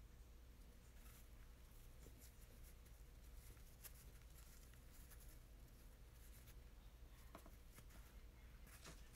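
Near silence, with faint scattered rustles and light ticks of tulle netting being handled and fluffed by hand.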